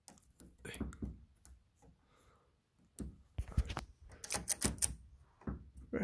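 Clicks, taps and light knocks of a doorknob's latch hardware being handled and worked on, in irregular clusters.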